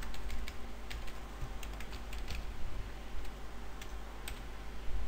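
Computer keyboard being typed on: a string of light, irregular keystroke clicks as a file name is typed.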